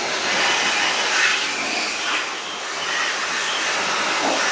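Handheld blower running steadily, its nozzle blasting air into an open aluminium transmission case half to clear out dust and debris.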